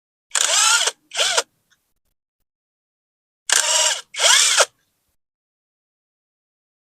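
Power drill or driver run in short trigger bursts, in two pairs: each burst's motor whine rises and then falls away, with a rattling, ratchet-like grind.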